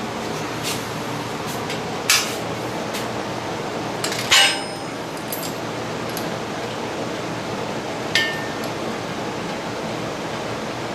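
Three sharp metallic clinks of steel tools and gym hardware being handled and set down: about two seconds in, about four seconds in (the loudest, ringing briefly), and about eight seconds in, over a steady background hiss.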